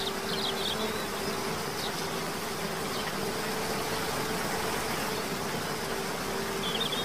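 Quadcopter drone propellers buzzing steadily, with a few short high chirps near the start.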